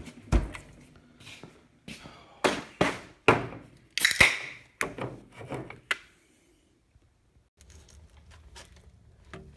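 About a dozen irregular metal knocks and clunks from tools being worked on the wheel hub over the first six seconds. Then it drops to near quiet with a few faint ticks.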